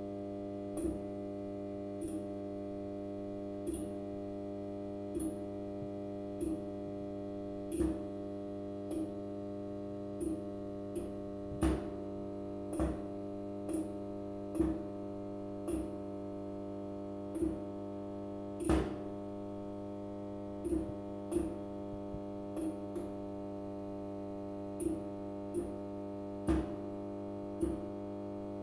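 Fluorescent light fixture giving a steady low electrical hum, with short sharp clicks at irregular intervals, roughly one every second or two.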